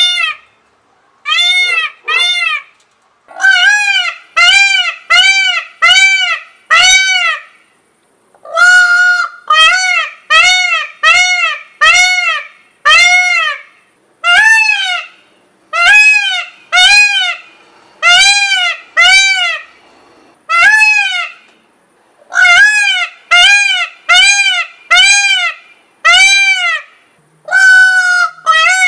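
Indian peafowl (peacock) calling over and over: loud, arching, nasal cries about one a second, in runs of four to six with short pauses between runs.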